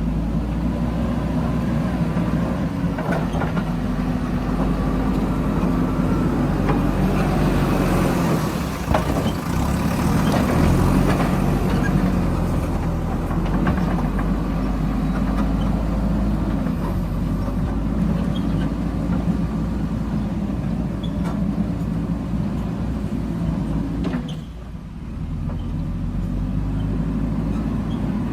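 Heavy diesel engine running steadily, its pitch rising and falling as it is worked, with a noisier stretch of scattered knocks and scraping from about 7 to 12 seconds in and a brief drop in level near the end.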